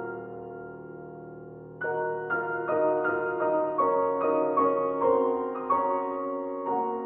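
Piano music: a held chord, then a slow melody of single notes entering about two seconds in, each note struck and fading.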